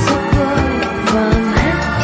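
Cha-cha dance track with a steady drum beat and a sung melody.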